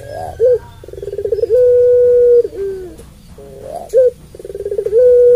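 Puter pelung, a long-voiced strain of ringneck dove, giving its long coo twice. Each call opens with a short sharp note, runs into a stutter of quick pulses, and swells into one long held note. The first call ends with a drop in pitch; the second is still held at the end.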